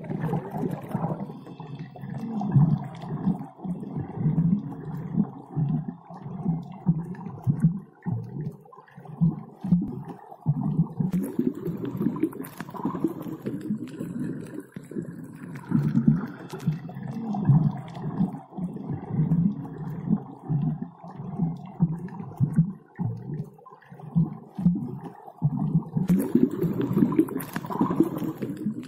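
Low, gurgling underwater rumble that keeps swelling and fading, with a hissing layer that comes in twice.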